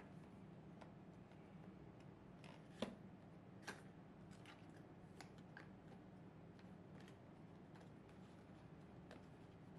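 Faint clicks and taps of a small cardboard product box being handled and opened, with two louder clicks about three seconds in and just under four seconds in, over a low steady hum.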